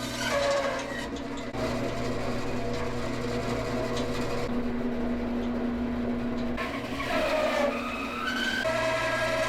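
Bandsaw running and cutting wet walnut: a steady motor hum under the blade's cutting noise, which changes pitch a few times as the blade is loaded and eased off.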